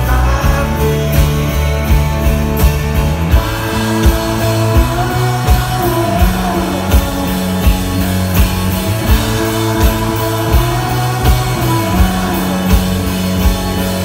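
Live rock band playing loud: a man singing lead over a strummed acoustic guitar, electric guitar, bass and a steady drum beat.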